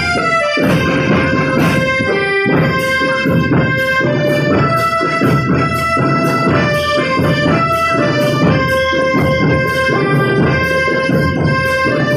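School drum band playing: snare and bass drums keep a steady beat under a melody of held notes.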